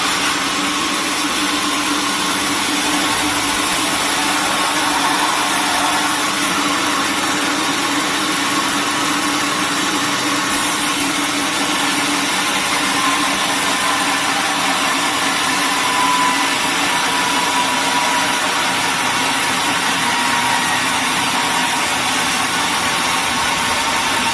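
Sawmill machinery running steadily, a constant mechanical noise with a faint hum underneath.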